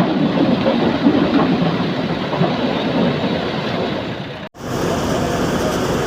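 Corn picker harvester running, its engine and machinery making a steady, rumbling, clattering noise. About four and a half seconds in, the sound cuts out for an instant and resumes with a thinner, hissier tone.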